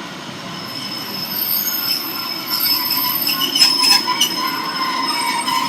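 Train wheels squealing on the rails as a diesel multiple unit comes through the station, growing louder, with a few sharp clacks from the wheels about three and a half seconds in.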